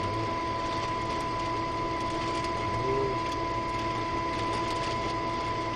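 Steady hum of the International Space Station's ventilation fans and onboard equipment, with several fixed tones, overlaid by faint crinkling of foil food packets being handled.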